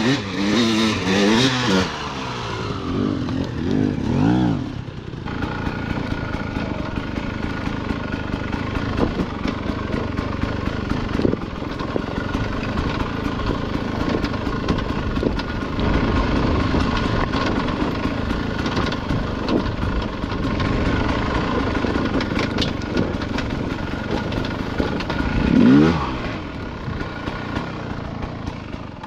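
Dirt bike engines. For the first few seconds a second bike revs up and down as it comes close. Then a dirt bike runs steadily under way on the trail, revs up sharply once near the end, and fades out.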